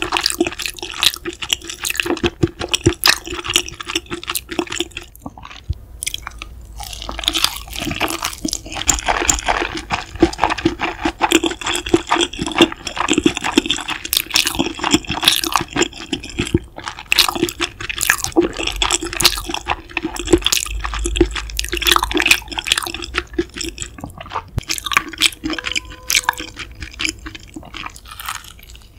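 Close-miked wet chewing and mouth sounds: a stream of rapid squishy, smacking clicks from saucy food being chewed.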